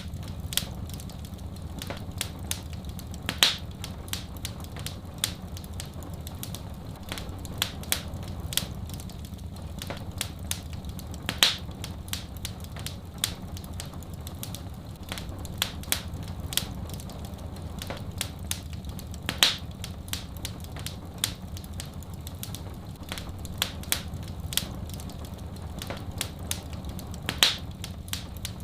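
Wood fire in a fireplace crackling steadily with many small snaps, and a louder pop about every eight seconds, over a steady low rumble.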